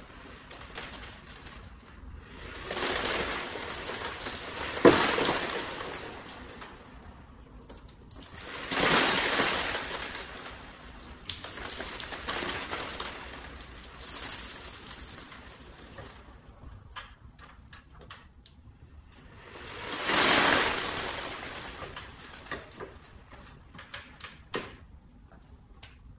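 Salt water poured from a glass onto an iron rail and salt crystals on an acrylic shelf, splashing and trickling in several separate pours that swell and fade. There is one sharp clink about five seconds in, and a few light knocks near the end.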